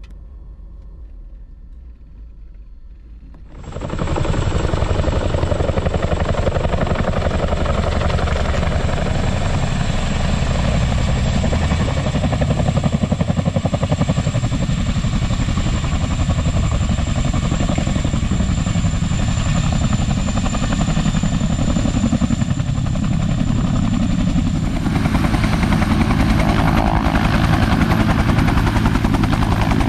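Helicopter rotor and turbine noise, loud and steady with a fast rotor chop and a thin high whine. It cuts in suddenly about four seconds in, after a quieter low rumble, and grows louder near the end as the helicopter is close by.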